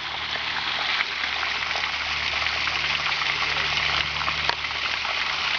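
Mountain waterfall rushing and splashing steadily.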